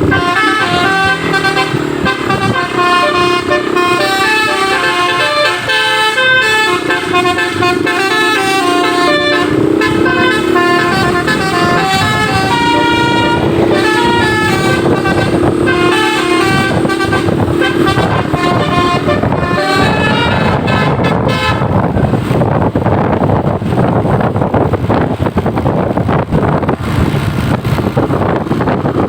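Basuri multi-tone musical bus horn (telolet) playing a melody of stepped notes. About twenty seconds in the tune fades out, leaving steady noise.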